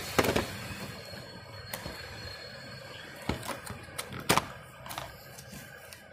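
A cardboard phone box being handled as its inner tray is pushed out of the sleeve. Several sharp taps and knocks are heard at irregular intervals, with light scraping between them; the loudest come just after the start and about four seconds in.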